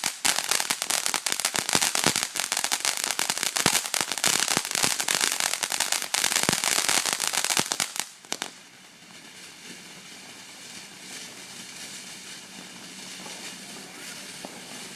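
A firework crackling: a dense, rapid stream of sharp pops that cuts off suddenly about eight seconds in, leaving only faint background noise.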